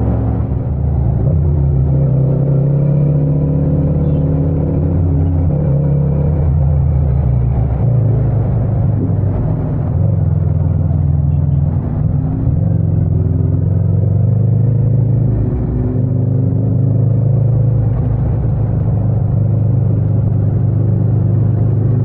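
Yamaha MT-07's parallel-twin engine running under the rider at low to moderate revs, its note rising and falling with the throttle as the bike slows and changes down from third to second gear.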